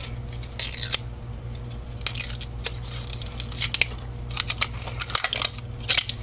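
Plastic wrapping on an LOL Surprise ball crinkling and tearing as it is peeled off by hand, in a string of short rustles and clicks that grow busier in the second half, over a steady low hum.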